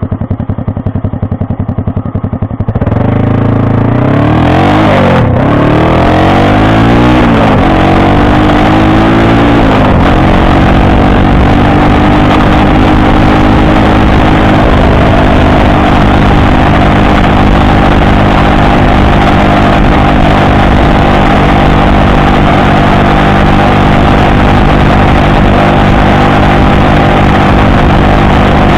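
Small Honda 49cc four-stroke single-cylinder engine's exhaust through a short 'Kotetsukan' pipe with the silencer baffle fitted, on the move. It idles for about three seconds, then pulls away with the revs rising and dropping back several times as it goes up through the gears, and from about ten seconds in it holds a steady engine speed while cruising.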